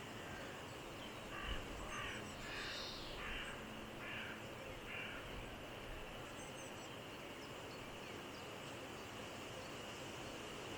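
A bird calling: a run of about six short, harsh calls, evenly spaced, over a few seconds, against a steady outdoor hiss. A brief higher call comes in the middle of the run.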